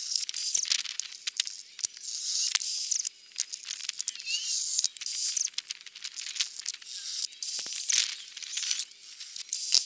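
Hand tools and small metal parts clicking and rattling as they are handled, with many sharp clicks and short scraping rustles in an uneven rhythm.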